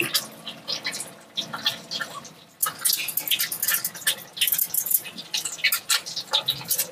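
Food frying in hot oil in a metal wok, crackling and spitting, with the metal spatula scraping and clacking against the pan. It is sparse at first and gets suddenly louder and busier about two and a half seconds in.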